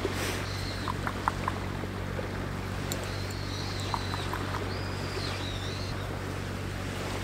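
Distant boat engine droning steadily, with a few faint high chirps and a thin wavering whistle over it.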